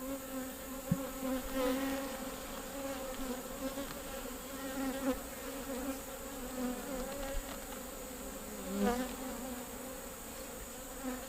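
Honey bees buzzing around an open hive: a steady hum, with single bees flying close past the microphone about two seconds in and again near nine seconds. A brief click about a second in.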